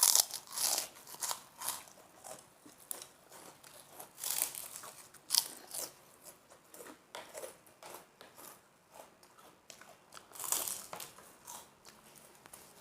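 Close-up eating sounds: crisp bites and crunching of krupuk crackers with chewing, coming in irregular bursts that are loudest at the start, around four to five seconds in and about ten and a half seconds in.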